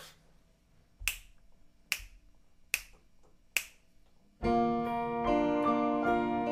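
Four evenly spaced finger snaps counting in the tempo, then a little past halfway the band comes in with sustained piano chords and acoustic guitar.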